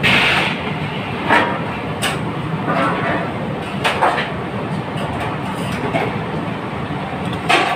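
Steady roar of a busy commercial kitchen, broken by about five sharp clatters, at the start, around 1.4, 2 and 4 seconds, and near the end.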